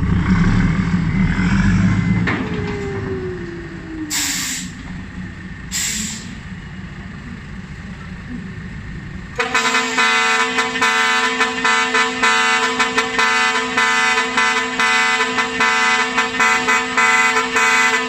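Dump truck's bank of trumpet air horns sounding a sustained multi-note chord, starting suddenly about nine seconds in. Before it, a deep engine rumble and two short hisses.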